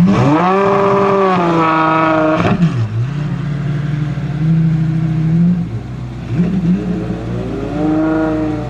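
Zenvo TSR-S's supercharged and turbocharged 5.8-litre V8 revving hard. Its pitch climbs steeply and holds high for about two seconds, then drops sharply. It runs lower for a few seconds, then revs up again near the end.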